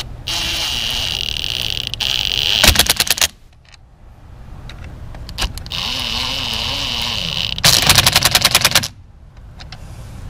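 Cordless drill turning a 10 mm socket on an extension to run down the battery terminal clamp nuts, twice. Each time the motor whirs steadily for about two seconds, then gives a burst of rapid clicking as the nut seats tight.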